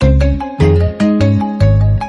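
A smartphone ringtone: a bright melody of short pitched notes over heavy bass notes about every half second, beginning abruptly.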